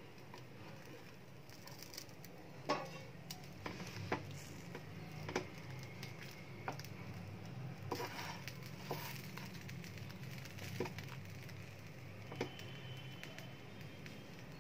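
Scattered soft taps and scrapes of bread and a spatula against a non-stick frying pan as a toasted sandwich is closed and turned over, about ten irregular knocks in all, over a steady low hum.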